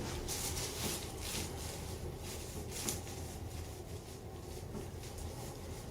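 Faint rustling and a few soft clicks from hands and clothing shifting on a chiropractic treatment table during a manual spinal adjustment, over a steady low hum.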